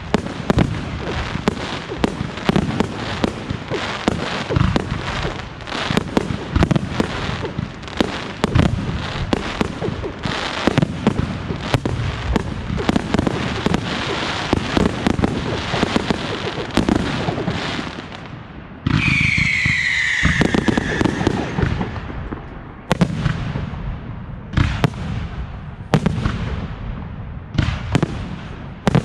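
Fireworks display: a dense, rapid barrage of bursting shells and crackle. About 19 s in a falling whistle sounds for roughly two seconds. After that the bangs come singly, about one a second.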